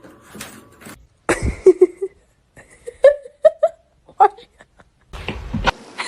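A person laughing in short bursts, with a low thud near the end.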